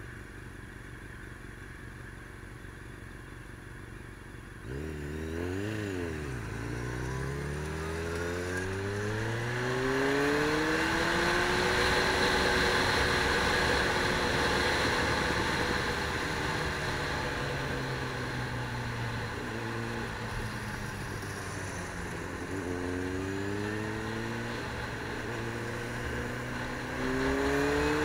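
A motor vehicle's engine revs up about five seconds in, then accelerates with a rising pitch, runs steadily for a while, and climbs in pitch again a few times near the end, as if shifting up through gears.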